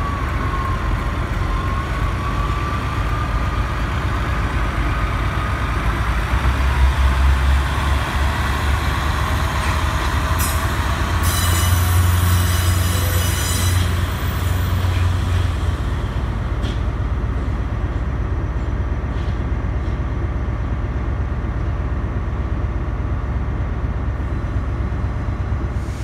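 Diesel train moving through the station, its engine giving a steady low rumble. Wheels squeal with a wavering high tone in the first several seconds, and a brief high hiss comes through around the middle.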